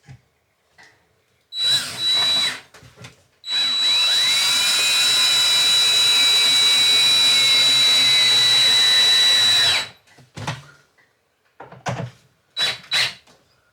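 Power drill running: two short bursts, then one steady run of about six seconds with a high whine, followed by a few light knocks.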